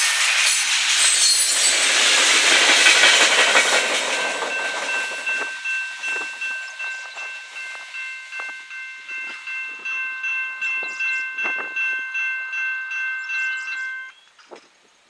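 Freight cars of a passing freight train rumbling and clattering past close by, then fading as the train pulls away. A grade-crossing warning bell rings over it at about two strokes a second and cuts off suddenly about a second before the end.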